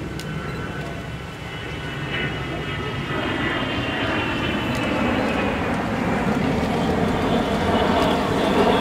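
Avro Vulcan jet bomber passing overhead: a deep jet rumble with a high whine slowly falling in pitch, growing steadily louder as it comes closer.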